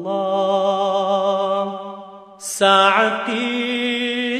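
A male voice chanting a nasheed: a long held "Allah" that fades out about two seconds in, then after a short break the next Arabic line begins.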